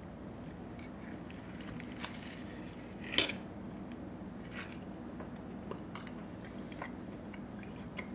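Knife and fork cutting slices from a grilled bone-in ribeye steak on a plate, heard as scattered light clicks and scrapes of the cutlery. The loudest click comes about three seconds in.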